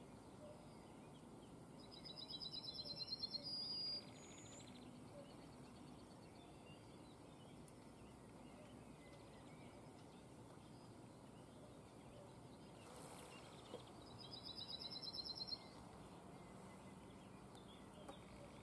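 A songbird singing two phrases, about two seconds in and again near the end: each is a quick run of repeated high notes growing louder, then cutting off. Faint, quiet field ambience lies beneath.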